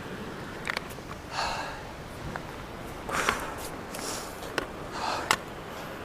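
A person breathing hard, with short rushing breaths about once a second, and a few sharp clicks in between.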